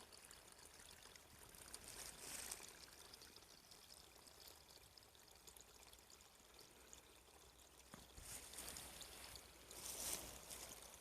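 Faint steady running water, a trickle or small stream, with louder swells of noise about two seconds in and again near the end.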